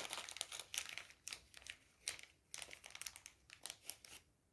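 Faint, irregular small clicks and crinkles of beads being handled and laid into the grooves of a flocked plastic bead design board.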